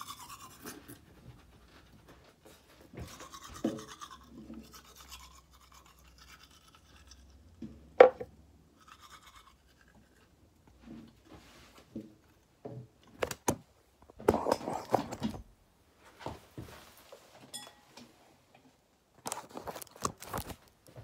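Toothbrush scrubbing in short, irregular spells with pauses between, and one sharp knock about 8 seconds in.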